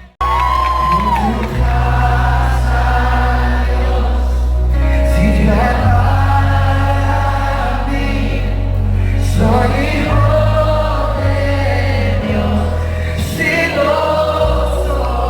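Live worship music: a band with sustained bass notes and a group of voices singing together.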